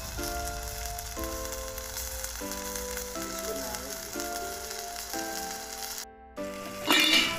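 Background music of sustained notes, changing about once a second, over the steady sizzle of food frying in hot oil. The sound cuts out briefly about six seconds in, then a louder burst of sizzling follows near the end.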